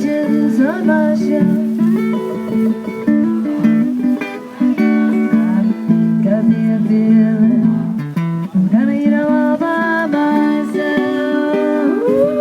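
Acoustic guitar music: held, stacked notes with a few that slide up and down in pitch, near the start, about nine seconds in and near the end.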